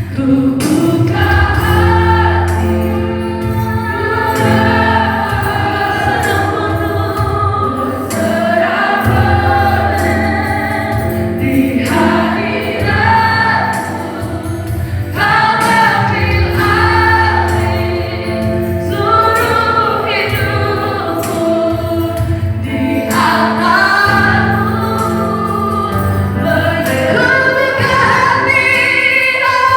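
A choir singing a Christian gospel song over instrumental accompaniment with sustained bass notes.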